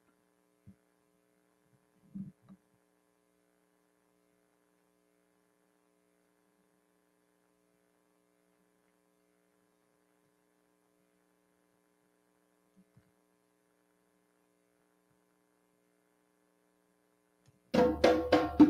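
Near silence with a faint steady hum and a few soft thumps. Near the end, loud drum-led percussion music starts abruptly.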